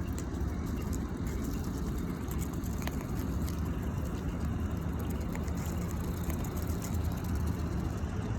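Steady low rumble of a tractor engine running, with a few faint clicks over it.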